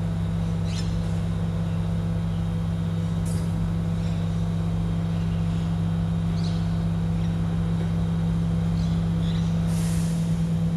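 Rubbish truck's diesel engine running steadily at low speed, with a few short hisses of air from its air brakes.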